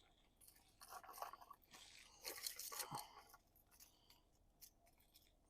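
Faint crinkling and light clicking of fishing lures being handled and pulled from a plastic Ziploc bag, in short scattered bursts that die away after about three seconds.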